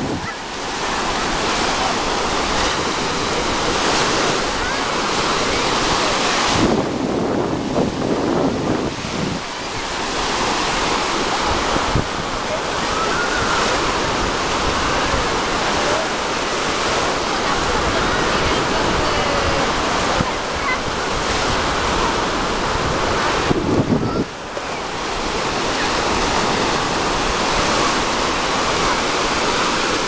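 Black Sea surf: small waves breaking and washing up the shore in a steady, swelling rush, with wind buffeting the microphone.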